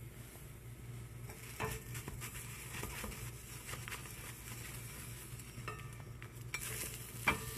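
Pancake batter sizzling in a stainless steel frying pan, the hiss building after about a second, with a few light clinks and knocks of the pan, the sharpest near the end. A steady low hum runs underneath.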